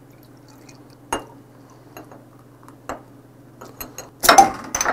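A few sharp glass clinks and bottle knocks as soju and beer are mixed in a glass, then near the end beer pouring and foaming into the glass. A low steady hum sits under it all.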